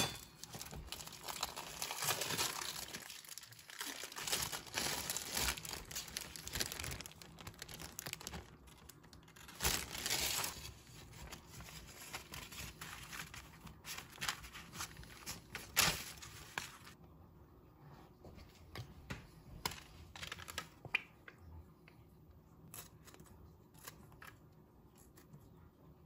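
Parchment paper crinkling and rustling as it is handled and smoothed out and dough is pressed onto it by hand. About two-thirds of the way through, the rustling dies down to quieter, scattered light taps and rustles.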